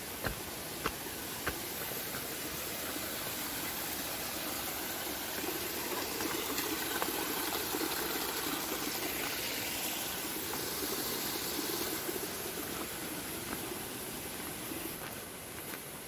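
Rushing water of a stream along the trail, a steady hiss that swells in the middle and eases off near the end. A few light clicks sound in the first two seconds.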